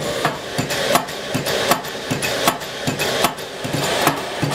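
Graco high-pressure piston feed pump running, with a steady hiss and regular sharp clicks and knocks as it strokes, pressurising wet biomass to about 300 atmospheres.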